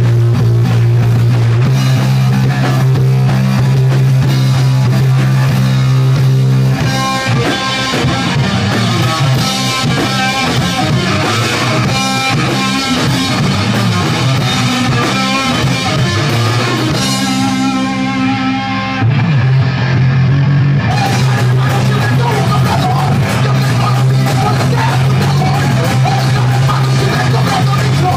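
A rock band playing loud live music on drums and electric guitar, with a heavy, sustained low end. The part changes about seven seconds in, and the cymbals and high guitar thin out for a few seconds past the middle before the full band comes back.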